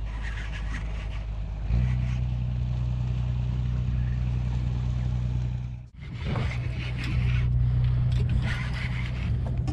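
Motorboat engine running with a steady low drone; it gets louder about two seconds in, breaks off for an instant near six seconds, then runs on.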